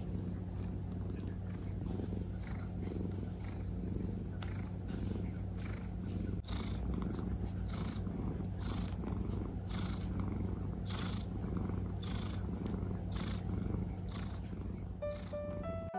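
Brown tabby cat purring steadily, close up, the purr swelling and easing with each breath. Piano music comes in about a second before the end.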